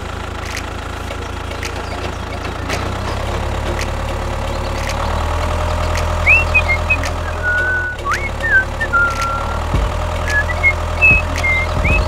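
Tractor diesel engine running steadily, a low rumble that grows a little louder about five seconds in. Short high chirping whistles come in over it from about six seconds on.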